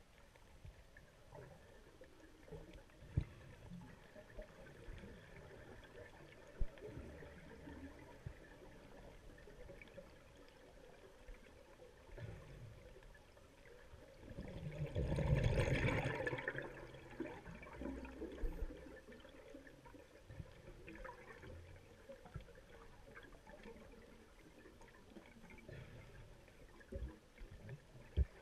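Underwater ambience with a low steady hiss and a couple of sharp clicks in the first seven seconds. About halfway through comes a loud rush of bubbles lasting about two seconds: a scuba diver exhaling through a regulator.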